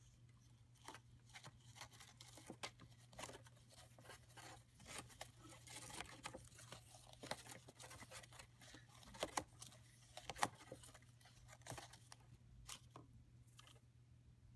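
Faint, irregular rustling and small clicks of a pet hedgehog moving about in the bedding of its cage, over a steady low hum.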